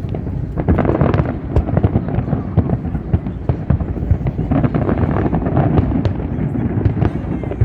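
Fireworks display: a dense, continuous barrage of bangs and crackles over a steady low rumble.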